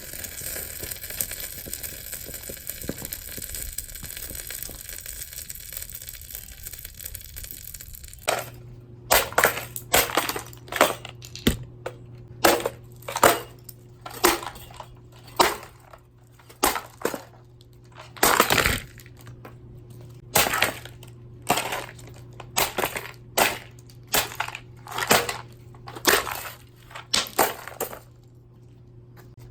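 Sunbeam electric fan heater being smashed. A steady hiss runs for about eight seconds, then a run of about twenty sharp blows follows, roughly one a second, breaking the heater apart.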